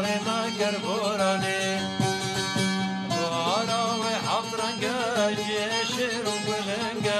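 Background Kurdish folk music: a winding, ornamented melody with sliding pitch bends over a steady low drone.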